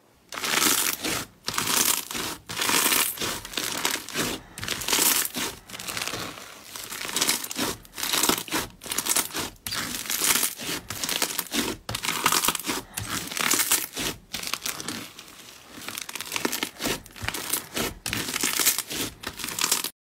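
Hands kneading and squeezing pink slime with sprinkles mixed in: a continuous run of wet crackling and crinkling squishes, coming in uneven bursts about once or twice a second.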